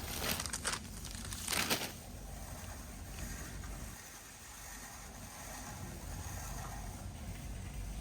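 Warehouse store ambience: a steady low hum of the building, with two short rustling bursts in the first two seconds.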